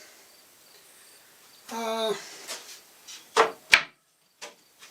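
Plywood cabinet door with a hidden wooden latch being worked: a brief pitched sound about two seconds in, then several sharp wooden clicks and knocks as the latch catches and releases, the loudest about three and a half seconds in.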